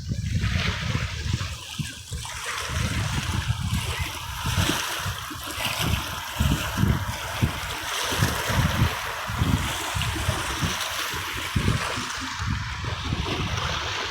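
Sea waves washing and splashing on the shore, a continuous hiss of water with irregular low rumbling pulses underneath.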